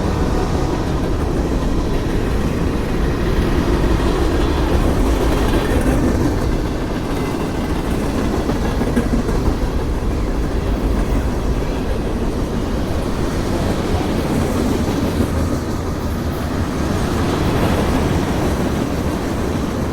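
Norfolk Southern mixed manifest freight train rolling past, a steady loud rumble and clatter of its car wheels on the rails.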